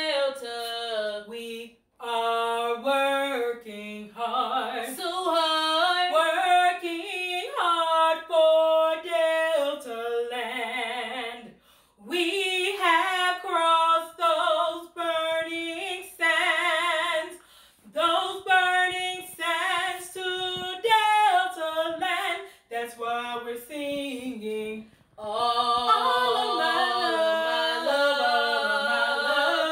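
A woman singing a slow song unaccompanied, with long held notes, broken by a few brief pauses.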